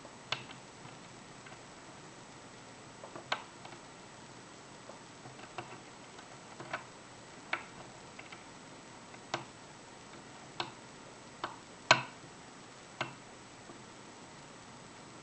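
Light, irregular metallic clicks of a hook pick working the pin stacks of an Evva five-pin euro cylinder lock, about a dozen spread over the stretch, the loudest about three-quarters of the way through.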